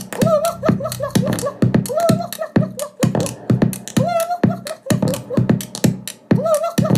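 A dance track played from a vinyl record on a turntable: a punchy, steady drum beat under a short, chopped vocal phrase that repeats about every two seconds.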